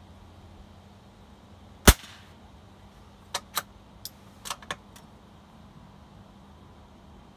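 A single shot from a .22 bolt-action rifle about two seconds in, followed a second and a half later by about six quick metallic clicks as the bolt is worked.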